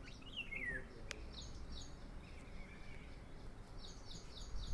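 Faint birdsong: short high chirps repeated in quick series, and one falling whistled note near the start. A thin click comes about a second in, and a low thump right at the end.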